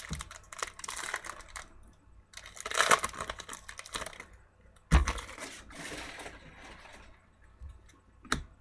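Trading cards and packs being handled: irregular rustling and small clicks as cards are slid and sorted, with a sharp knock about five seconds in.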